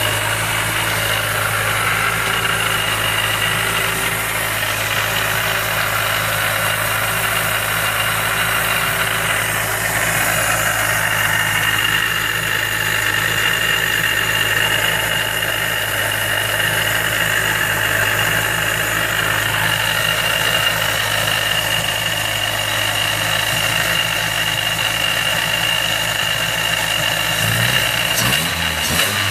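Mazda Miata engine idling with a Jackson Racing M45 supercharger fitted, a steady high whine and rough noise over the engine hum that the owner takes for bad supercharger bearings. Near the end the revs start to rise.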